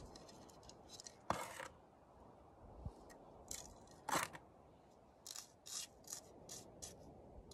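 Soil and small stones scraping and trickling in a red plastic scoop and over the hand as a prospector sifts dug dirt to find a small gold nugget. It comes in short, irregular scrapes, the two strongest a little over a second in and about four seconds in, with quick light rustles after the middle.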